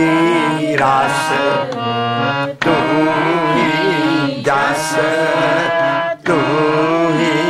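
Sikh kirtan: a man sings long, wavering, drawn-out melodic phrases over the steady held tones of a harmonium. The phrases break off briefly about two and a half and six seconds in.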